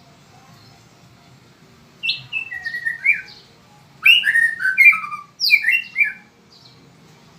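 White-rumped shama singing: three loud bursts of rich, whistled song phrases, beginning about two seconds in, with quick notes sliding down in pitch.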